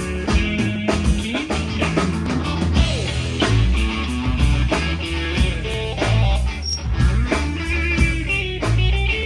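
Rock band playing an instrumental passage: electric guitar lead with notes that bend up and down over a low bass line and drum kit.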